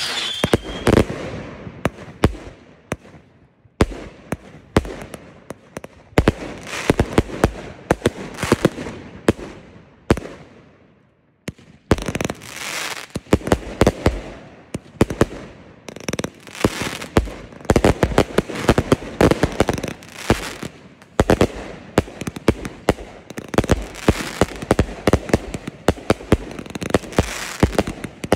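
Consumer fireworks going off in rapid, overlapping bangs, many per second. The barrage thins to a short lull about ten seconds in, then picks up again in dense volleys.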